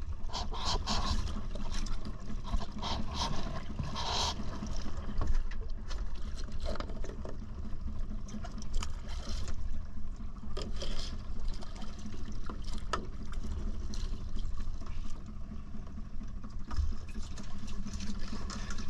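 Water splashing and trickling in irregular bursts, over a steady low hum of machinery.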